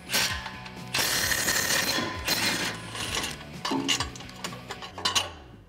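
Cordless impact wrench hammering on a U-joint and 13 mm socket, backing out exhaust flange bolts. It runs in several bursts, the longest about a second.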